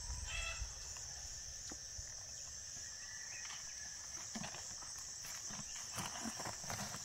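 A steady high-pitched insect chorus, with faint scattered rustling and light taps underneath.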